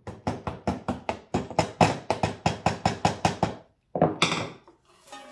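Rapid, even knocking, about five hard strikes a second, each with a short ringing tone, stopping about three and a half seconds in; a brief scraping noise follows near the end.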